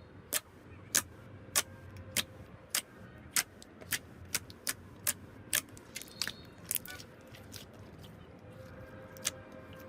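Slime being played with, giving sharp clicking pops at a steady pace of about one and a half a second that thin out near the end.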